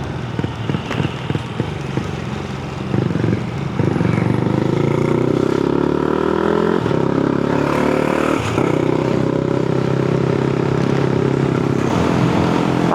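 Honda Grom's 125 cc single-cylinder engine pulling away and accelerating. The pitch rises, drops at an upshift a little before halfway, rises again, and after a second upshift settles into a steady cruise.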